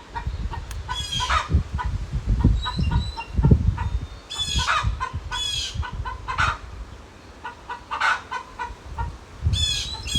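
Chickens clucking and squawking, with several harsh calls spread through, over a quick regular ticking chirp and a low rumble.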